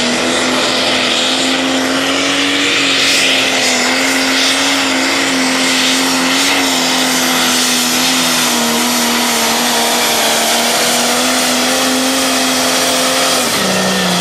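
Pro Stock pulling tractor's diesel engine held at full throttle, dragging the weight sled down the track, a loud steady high engine note whose pitch drops near the end.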